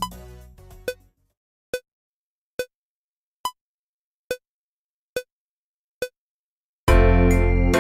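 Metronome count-in of eight clicks, a little under one a second, with a higher click on the first of each group of four: two bars of four at a slow tempo. About a second before the end, the keyboard accompaniment with bass comes in on the next beat.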